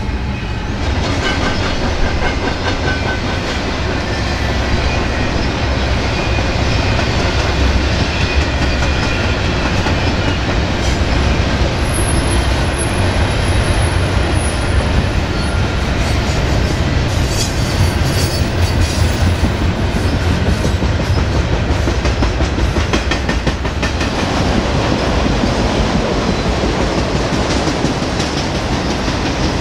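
BNSF freight train rolling past at speed: a steady rumble and clickety-clack of steel wheels on the rails as double-stack container cars go by, then autorack cars. A thin high squeal rises above it for a few seconds around the middle.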